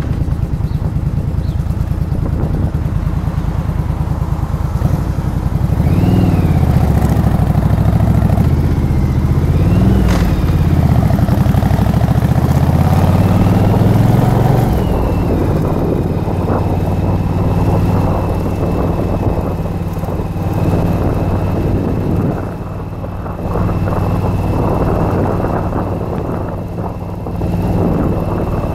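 Yamaha Virago XV1100's air-cooled V-twin engine running under way, its pitch rising and falling twice, about six and ten seconds in, then holding steady.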